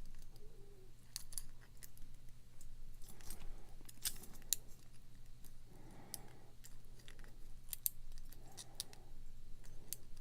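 Faint, irregular metallic clicks and scrapes of a hook pick and top-of-keyway tension wrench working the pin stack inside a pin-tumbler lock's keyway, as the pins are lifted one by one.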